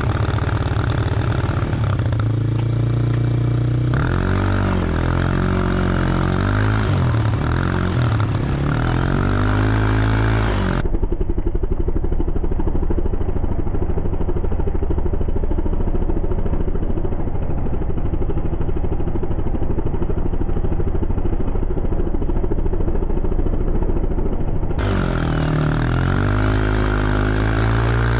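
Small four-wheeler (ATV) engine running as it is ridden, revving up and down in the first ten seconds or so and near the end. In the middle it runs steadier and sounds duller.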